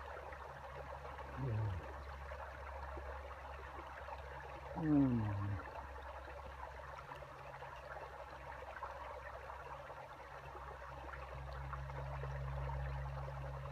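Shallow stream running over rocks below a small waterfall, a steady rush of water. Two short falling tones cut across it, about a second and a half in and, louder, about five seconds in.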